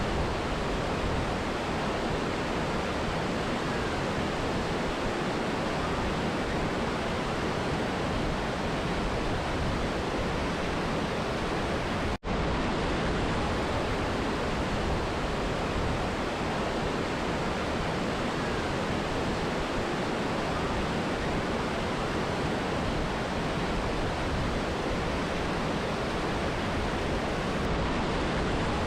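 Mountain river and waterfall rushing steadily, with one brief dropout in the sound about twelve seconds in.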